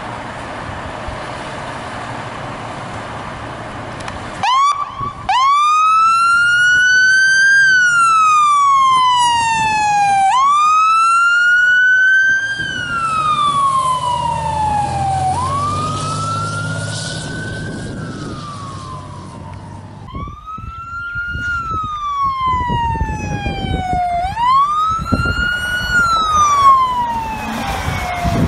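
Fire truck siren wailing over steady traffic noise, starting about four seconds in. Each cycle rises quickly and falls more slowly, about five cycles in a row, with the truck's engine rumbling underneath.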